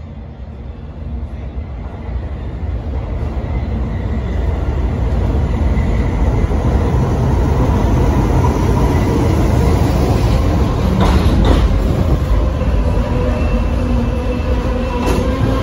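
R32 subway train pulling into the station, its rumble on the rails growing steadily louder for several seconds as it approaches, then staying loud as the cars pass close by. A thin squeal rides over the rumble, and a few clacks come from the wheels in the second half.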